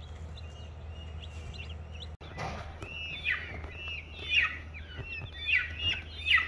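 Baby chicks peeping in a brooder, faint at first. After about two seconds a louder chorus of Barred Rock and Rhode Island Red chicks peeps, with high falling peeps several times a second over a low steady hum.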